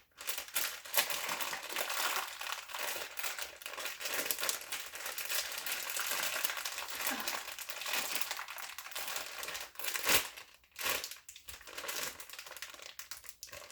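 Plastic packaging crinkling and rustling as it is handled and pulled at, with a sharper crackle about ten seconds in.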